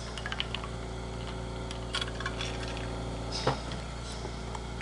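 Light clinks and taps of an insulated metal water bottle being handled while someone drinks from it. A stronger knock comes about three and a half seconds in, and a steady low hum runs underneath.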